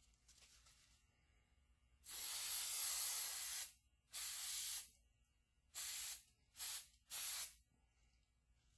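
Aerosol can of 3M Super 77 spray adhesive hissing in five bursts. The first is the longest, about a second and a half, and is followed by a shorter one. The last three are quick and close together.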